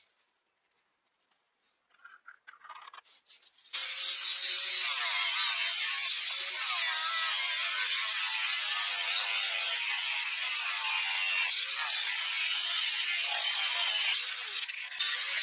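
Faint pencil scratching, then about four seconds in an angle grinder with a cutting disc cuts in, slicing through the steel plate of a circular saw blade with a steady high whine and hiss. The grinding dips briefly near the end.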